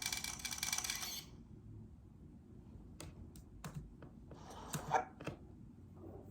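A loud hissing noise that cuts off suddenly about a second in, then a handful of light, sharp clicks and taps spread over the next few seconds.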